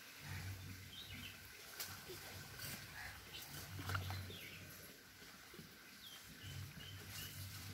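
Three bursts of low rumbling, with a few sharp knocks and faint short bird chirps.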